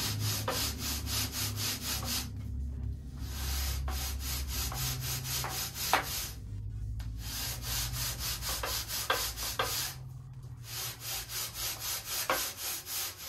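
Long sanding bar rubbed quickly back and forth along the edge of a balsa sheet to square it, about five strokes a second, in four runs with short pauses between.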